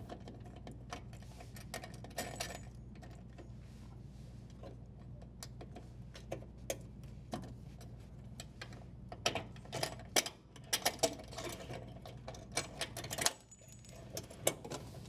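Small clicks, taps and scrapes of a power cord's strain relief and wires being worked loose and pulled out through a dishwasher's sheet-metal junction box, thickening into a quick run of clicks in the second half, over a steady low hum.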